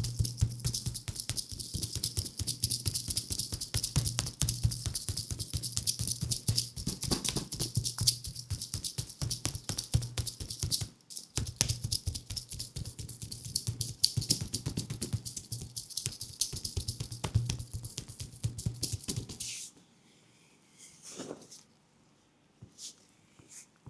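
Thai tok sen massage: a wooden mallet rapidly tapping a wooden wedge against a leg, a dense run of dry clicking knocks, many per second. It breaks off briefly about 11 seconds in and stops at about 19 seconds, leaving a few scattered soft sounds.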